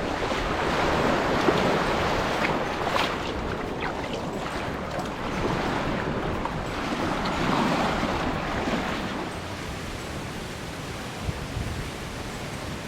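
Water washing and surging in swells, with wind rushing on the microphone and a few faint knocks.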